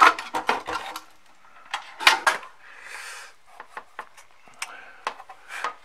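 Metal clatter and knocks from an amplifier power supply's aluminium heatsink and chassis being handled and turned over, with a quick run of clicks at the start, another cluster about two seconds in, and a brief scrape about three seconds in.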